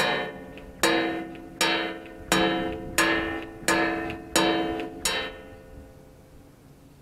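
Music: a plucked string chord, guitar-like, struck about eight times at an even pace of roughly one every three quarters of a second. Each chord rings and fades, and the last one dies away near the end.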